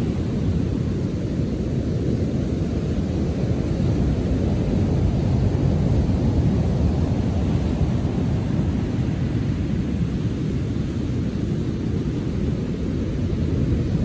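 Storm-churned ocean surf breaking and washing up a sandy beach: a steady deep rumble of breaking waves that swells a little around the middle.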